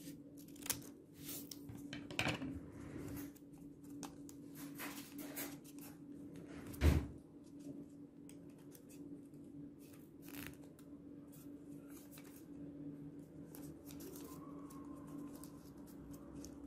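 Small scissors snipping through folded paper strips, a run of short crisp cuts in the first half, then softer rustling as the paper is folded by hand. A single thump, the loudest sound, about seven seconds in, over a faint steady low hum.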